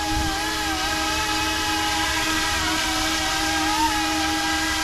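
YuXiang F09-S RC helicopter's electric motor and rotors running in low flight: a steady whine whose pitch wavers slightly as it holds position.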